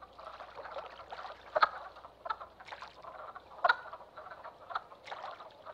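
A chorus of male wood frogs calling at a spawning pool: many overlapping short, duck-like clucking calls. A few louder calls stand out, about one and a half and three and a half seconds in.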